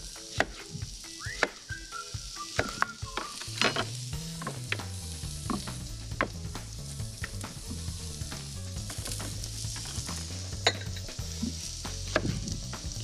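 Carrot slices sizzling in oil in a frying pan, with scattered sharp knife strokes on a cutting board as vegetables are sliced.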